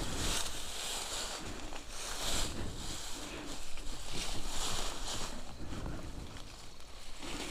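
Wind blowing over the microphone: a rushing hiss with low rumble that swells and fades every second or so.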